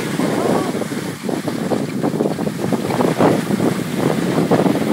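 Touring skis sliding and scraping over snow in an irregular rhythm, mixed with wind buffeting the microphone.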